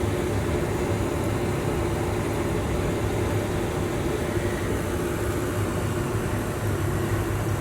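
Steady machine hum with an airy hiss and a faint held tone, unchanging throughout.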